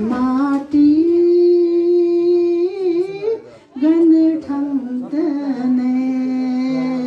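A child singing solo in long, drawn-out notes that bend and waver in pitch, with short breaks for breath about half a second in and again around three and a half seconds.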